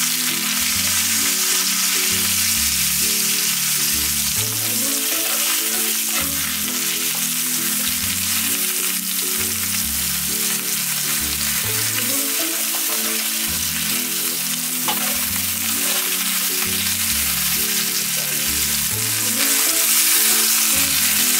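Basa fish fillets frying in oil in a cast-iron pan: a steady, continuous sizzle. Background music with a repeating bass line plays underneath.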